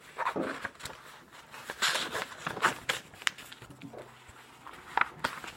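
Paper rustling and light clicks and scrapes of a handwritten card being handled and tucked away, with a longer rustle about two seconds in.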